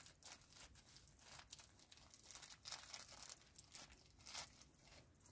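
Faint, irregular rustling of soft fabric as a knitted cardigan sleeve is worked over a reborn baby doll's arm.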